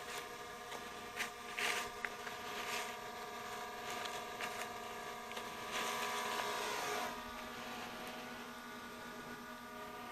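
Quadcopter camera drone hovering overhead, its propellers giving a steady, multi-toned whine that shifts slightly in pitch about seven seconds in.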